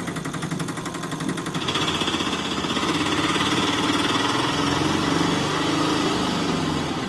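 Engine running with a fast, even chugging, growing louder and fuller about one and a half seconds in.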